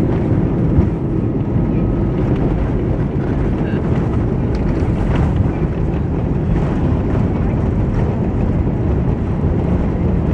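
Steady low rumble inside the cabin of an Airbus A320 on landing, heard from the first row: engine and airflow noise with no distinct separate events.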